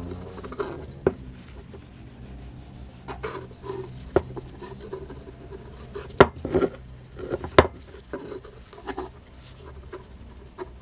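Knitted work glove rubbing wax into a ball-peen hammer's wooden handle: a dry, repeated scuffing along the wood, with a few sharp knocks, the loudest about six and seven and a half seconds in.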